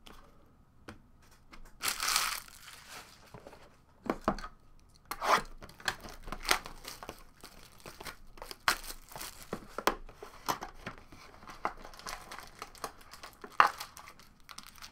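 A foil trading-card pack wrapper being torn open and crinkled by hand: a loud tearing rip about two seconds in, then irregular crackling crinkles as the wrapper is handled.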